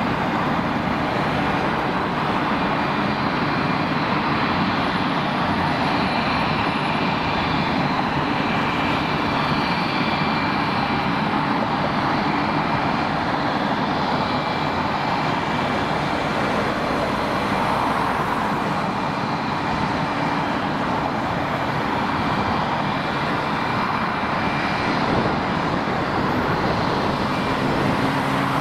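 Steady, dense road traffic noise from cars and trucks passing, with faint thin high tones running above it.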